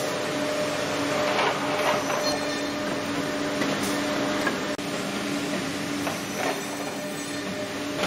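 SystemTM Opti-Joint V-8 finger-jointing machine running: a steady mechanical hum with a pulsing low tone and rushes of noise that swell and fade. The sound breaks off for a moment a little past halfway.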